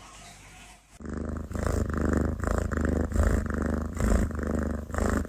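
A domestic cat purring loudly close up, a rattling buzz that swells and eases in pulses with each breath; it starts suddenly about a second in after near-quiet.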